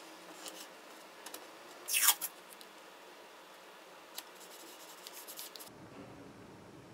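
Tamiya masking tape being applied to a plastic model: one brief, loud rip of tape about two seconds in, among faint taps and scratches of fingers and a hobby blade working the tape down.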